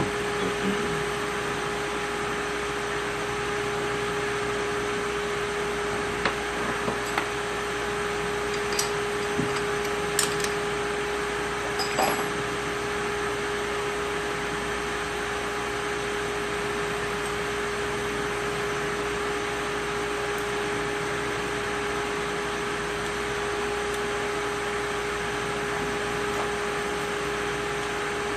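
Steady machine hum with a strong even tone, like a running fan or similar motor. It is broken in roughly the first half by a few light clicks and taps of hand tools on the engine.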